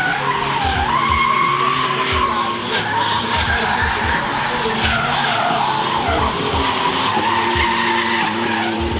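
Drift cars' engines running at high revs, the pitch dipping and climbing again about a second in and again near six seconds, over the hiss of tyres sliding sideways on tarmac.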